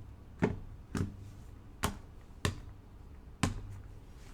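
Five sharp knocks of hard objects set down or tapped on a tabletop, each with a short dull ring, spaced about half a second to a second apart.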